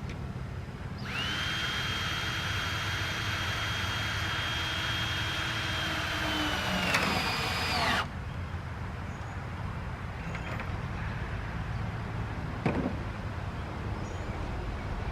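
Power drill driving a 1/4-inch hex-head screw: the motor runs with a steady high whine for about seven seconds, its pitch dropping as the screw seats, then it stops. A couple of sharp clicks follow later.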